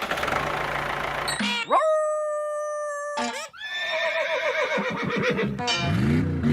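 A quick run of cartoon sound effects: a noisy rush, then a glide rising into a held, horn-like tone about two seconds in, then wavering, falling animal-like calls resembling a horse's whinny in the second half.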